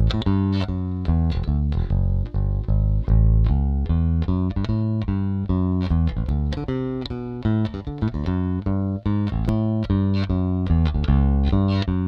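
Electric bass guitar with a single-coil pickup played fingerstyle, a walking bass line of steady plucked notes, a few a second. About halfway through, the same line starts again on the bass fitted with the other bridge: one take uses a standard Fender-style bridge and the other a Ray Ross bridge, for comparing tone and sustain.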